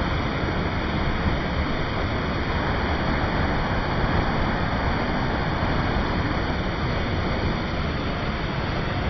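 A waterfall: water pouring and splashing in a steady rush of noise that does not let up.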